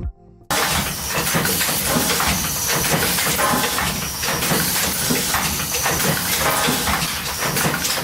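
Industrial machinery running: a dense, steady hissing clatter that starts abruptly about half a second in.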